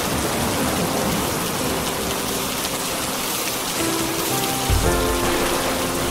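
Steady rain hiss with soft music notes held over it, more of them in the second half. A brief low thud comes about three-quarters of the way through.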